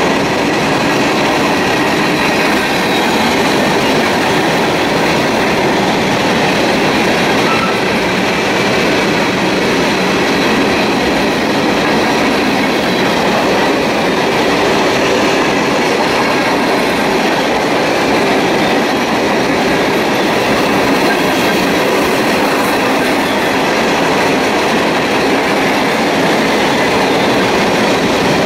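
Mixed freight train's cars rolling past close by: a steady, unbroken rumble and rattle of steel wheels on rail, with faint steady high ringing over it.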